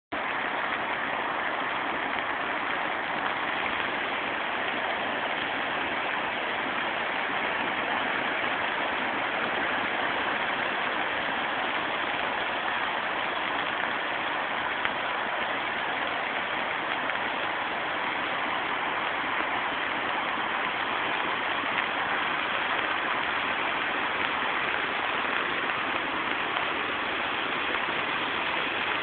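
Floodwater rushing, a steady unbroken noise of fast-moving water.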